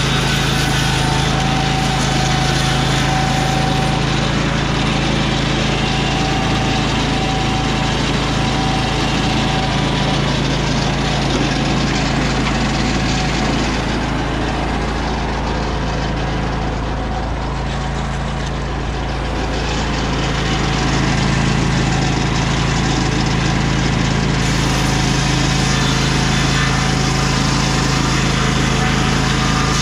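Vanguard 18 hp V-twin engine of a Lucas Mill 618 swing-blade sawmill running steadily, its circular blade ripping a board from a lodgepole pine log. A little past the middle the sound eases for a few seconds, then comes back up.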